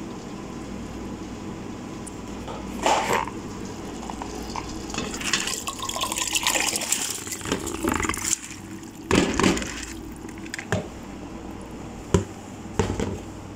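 Wet long-grain rice being tipped from a plastic bowl into a pot of tomato broth: a stretch of wet sliding and splashing in the middle, with several sharp knocks before and after it, over a steady low hum.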